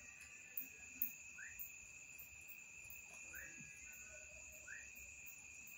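A faint, near-silent background: short rising chirps from a small animal repeat about every one and a half seconds over a steady high-pitched tone, with a couple of soft ticks near the start.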